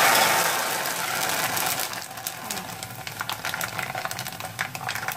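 Dried glass noodles (bean-thread vermicelli) frying in a pot of hot oil. A loud sizzle as they hit the oil and puff up fades over a couple of seconds into scattered crackling and popping.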